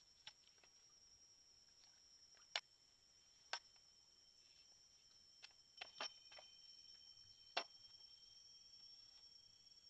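About eight sharp clicks and knocks at irregular intervals, over a faint, steady high-pitched drone.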